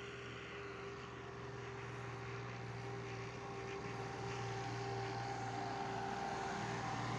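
A steady engine-like drone, a low hum with a couple of held tones over a wash of noise, growing slowly louder.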